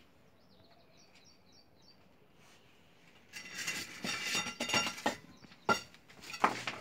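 A few faint high chirps, then rustling and scraping from about three seconds in as a cloth sack and loose bricks are moved, with two sharp knocks of brick or stick on concrete near the end.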